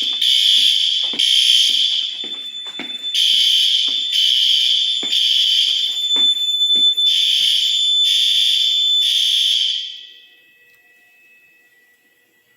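Building fire alarm horns sounding during a system test: a loud, buzzy high-pitched tone that pulses on and off with short gaps. It cuts off about ten seconds in, leaving only a faint steady tone.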